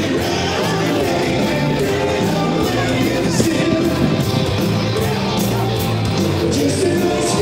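Live rock and roll music with guitar and singing.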